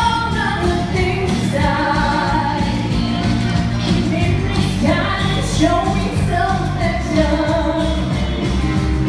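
A pop song performed live: a singer on an amplified microphone over music with a steady beat.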